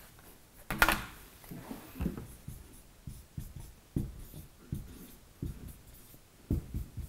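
Marker writing on a whiteboard: a string of short, separate strokes and taps as letters are drawn. A sharp click about a second in.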